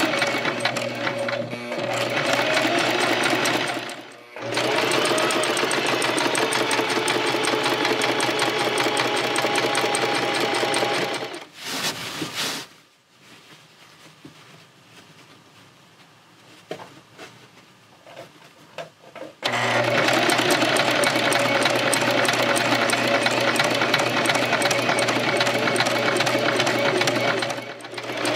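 Electric domestic sewing machine running fast, stitching a seam through fabric. It stops briefly about four seconds in, goes quiet for several seconds in the middle with only a few small clicks, then runs again and eases off just before the end.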